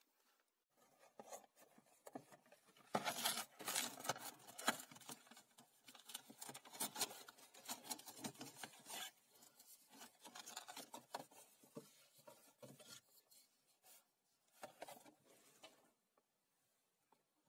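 Small cardboard box being handled and opened and an LED bulb slid out of it: rustling and scraping of card with small clicks, busiest a few seconds in and stopping near the end.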